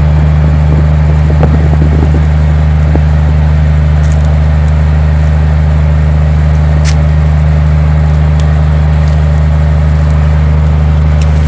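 A loud, steady low mechanical hum that does not change, with a few faint ticks over it.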